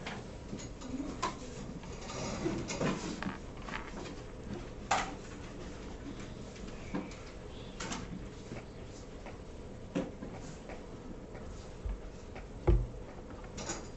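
Scattered light knocks, clicks and rustles of small objects being handled at desks, with a louder knock about five seconds in and a pair of heavier low thumps near the end.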